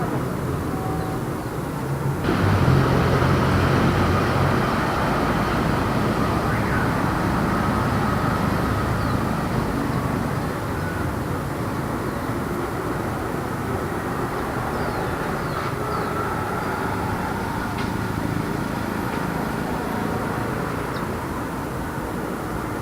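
Light city street traffic with cars passing steadily. About two seconds in, a louder vehicle's engine comes up close and goes by, and then the noise slowly eases back to the general traffic hum.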